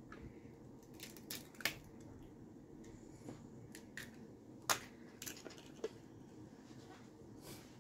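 Egg being cracked and its shell pulled apart by hand over a plastic mixing bowl: a few faint, sharp clicks and crackles of shell, the loudest a little under five seconds in.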